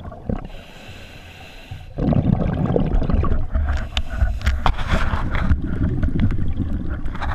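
Scuba diver breathing through a regulator underwater: a quieter, hissing inhale, then from about two seconds in a long exhale of bubbles rumbling and gurgling, with scattered small ticks.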